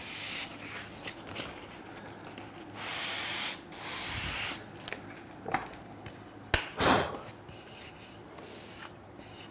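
Sandpaper on a foam sanding block rubbed along the edge of an ash board to lightly ease the edge: a series of hand-sanding strokes of uneven length, the two longest about three and four seconds in. A single sharp click comes a little past six seconds.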